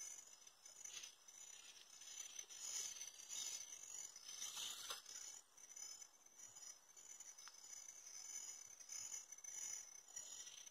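Near silence: a faint high-pitched outdoor hiss, with a few small clicks and rustles from the line and bait being handled.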